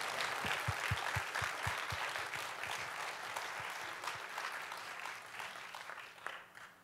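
Congregation applauding, with the clapping slowly dying away over several seconds.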